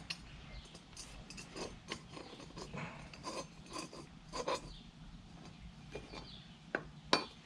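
Small metal hardware clicking and clinking in short, scattered taps as a washer, lock washer and nut are fitted by hand onto the bolt of a folding boat launch wheel bracket.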